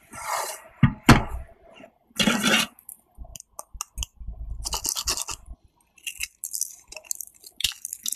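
Oven-baked toast sticks, dried crisp right through, snapping and crackling as they are broken by hand: a string of short dry crunches. There are a couple of sharp knocks about a second in.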